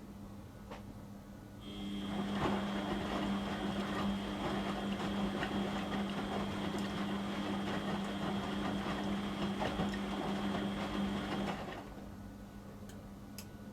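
Beko washing machine's drum motor turning the drum during a wash, a steady whine with a churning rattle. It starts about two seconds in and stops after about ten seconds, the usual on-off rhythm of a wash action. A low steady hum carries on under it throughout.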